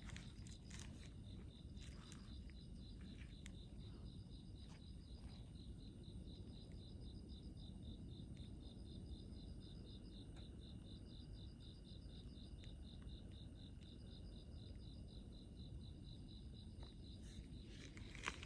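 Faint chorus of insects chirping: a steady high buzz with rows of evenly repeating chirps, over a low outdoor rumble. A sharp click near the end.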